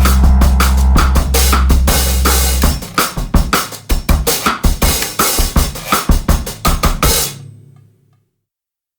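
Background music with a steady drum-kit beat and a held bass line; the bass drops out a little under 3 s in, the drums carry on, then fade out to silence about 8 s in.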